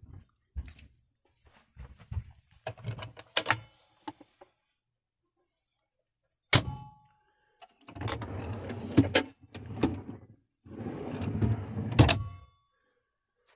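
Wooden parts of a camper van's bench-seat base being handled: scattered clicks and knocks, a sharp knock, then three spells of wood scraping as a piece is slid, with a sharp knock near the end.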